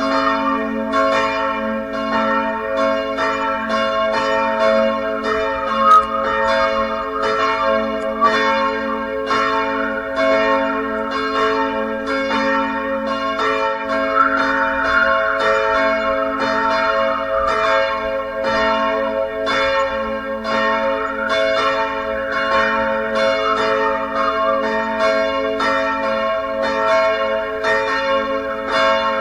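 Church bells ringing in a steady run of strokes, about two a second, each blending into a lingering ringing hum.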